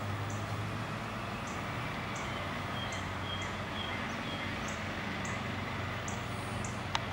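Outdoor ambience: a steady low hum with short high chirps repeating about once or twice a second, and a single sharp click near the end.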